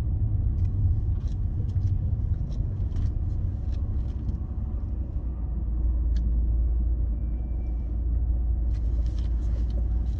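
Steady low rumble of a car's engine and tyres heard from inside the cabin while driving slowly, with a few faint clicks scattered through it.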